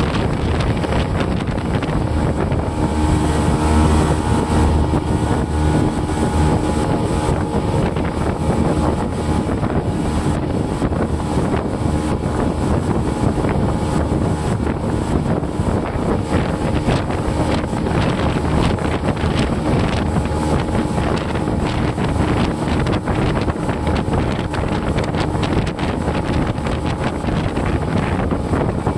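SJX 2470 jet boat under way, its engine and water jet running steadily, heard from inside the cabin together with a rush of wind and water.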